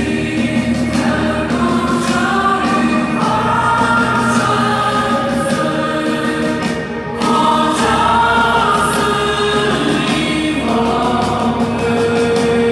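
Live concert music played loud through nearby PA speakers: a choir-like passage of sustained, layered voices over a steady low tone, with a brief drop in level about seven seconds in before the chords swell again.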